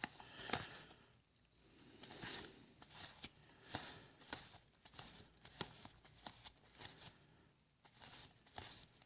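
Magic: The Gathering cards being handled and flipped one by one, giving faint papery clicks and rustles about twice a second.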